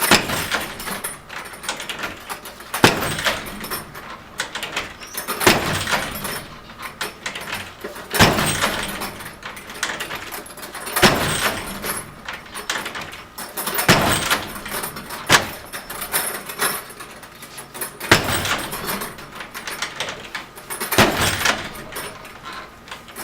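A 90-pound bag repeatedly striking a door held shut by a strike plate lock door chain: a heavy impact about every three seconds.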